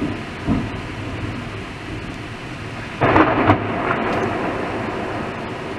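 A sharp thunderclap about three seconds in, then a rumble that slowly fades, over the steady noise of rain and wind through the trees.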